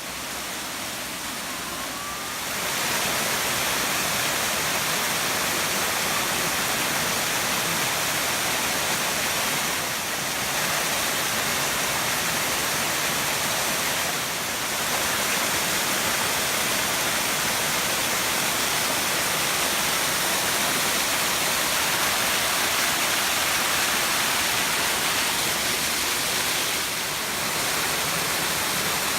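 Waterfall rushing, a steady hiss of falling water that gets louder about two and a half seconds in and dips briefly a few times.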